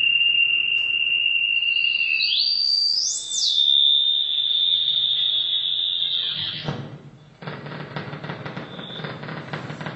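Live electronic music: a high, steady whistling tone that steps and glides upward about two seconds in, briefly peaks higher and drops back to a steady tone, then fades out about seven seconds in. It gives way to a rapidly fluttering, noisy electronic texture over a low hum.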